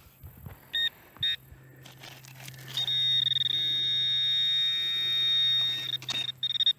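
Metal detector signalling a metal target: two short high beeps, then one long steady high tone for about three seconds, then a few quick beeps.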